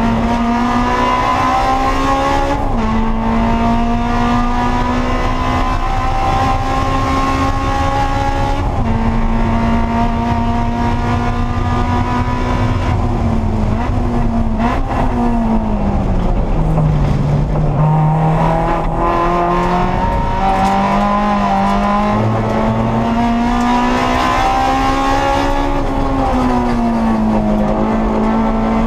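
A Honda S2000 race car's four-cylinder engine heard from inside the cockpit, running hard at high revs with an upshift a few seconds in. About halfway through the pitch falls as the car brakes and downshifts for a slow corner, then it climbs again under acceleration and eases briefly near the end.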